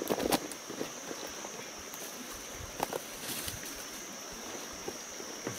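Steady high-pitched insect drone, with a few light clicks and rustles scattered through it.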